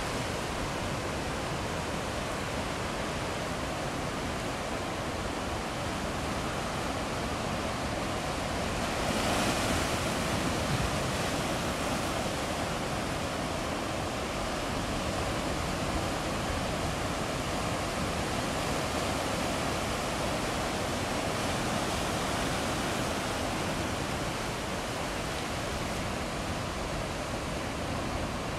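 Steady rushing of ocean surf, swelling a little louder about nine seconds in.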